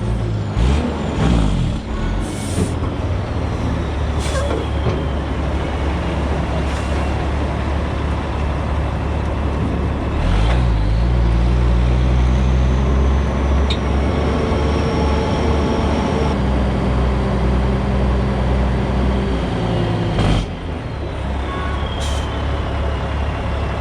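Western Star semi tractor's diesel engine running under load while hauling, its pitch changing with gear shifts about ten seconds in and again about twenty seconds in. Short sharp hisses from the truck's air system come through several times.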